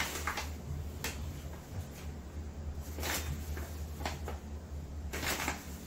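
Flour shaken out of a paper flour bag into a bowl on a kitchen scale, the bag rustling and the flour hissing in several short bursts, the longest near the end, over a steady low hum.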